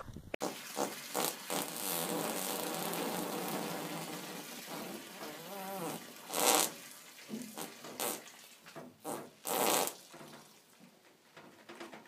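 Horse passing gas: a long, rippling fart lasting several seconds, followed by several shorter bursts.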